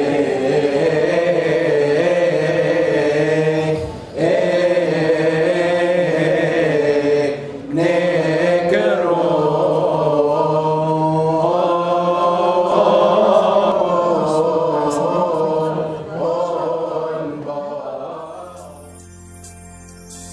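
A priest chanting a liturgical prayer in a steady, wavering melody, with two short pauses for breath. The chant fades out near the end.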